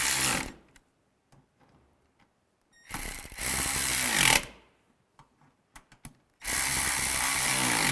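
Power driver running in three short bursts of about a second and a half each, its motor whine rising and falling, as it tightens the door latch's screws down.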